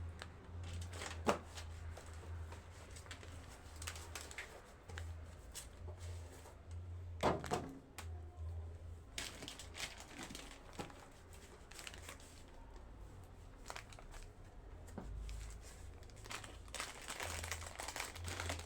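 Plastic food packaging crinkling and rustling, with occasional light knocks, as groceries are handled and put into a freezer. The loudest crinkle comes about seven seconds in.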